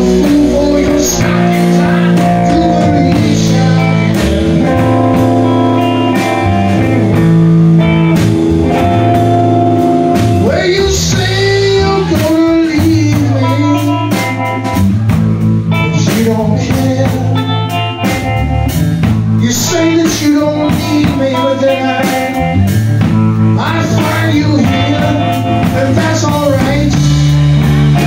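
Live blues-rock band playing: two electric guitars, bass guitar and drum kit, with a lead vocal singing over them.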